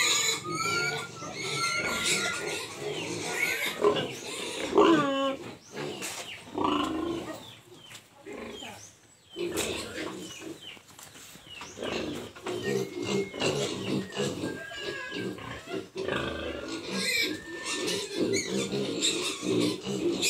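Pigs grunting and squealing, a busy mix of low grunts and short high pitched cries, with the loudest cry about five seconds in and a brief lull around nine seconds.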